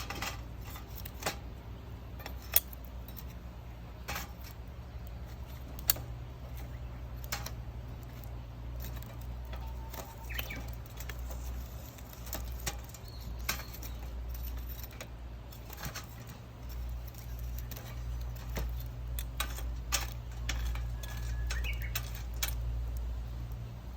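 Wood fire in a fire pit crackling, with sharp irregular pops over a steady low rumble, as a log burns hard with a chimney-effect draft.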